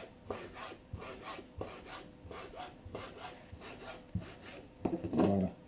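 A ceramic kitchen knife slicing raw squid into strips on a plastic cutting board. Each stroke cuts through the flesh and taps and scrapes the board, about three strokes a second.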